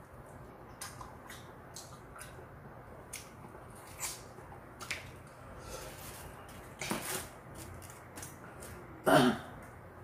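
Eating sounds of fried chicken: chewing and mouth clicks, with chopsticks clicking against the chicken and its takeout box. There is a louder short burst about seven seconds in and another about nine seconds in.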